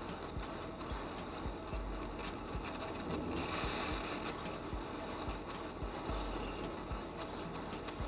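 Small scattered clicks and scrapes of tweezers and tools working on a circuit board, over a steady hiss.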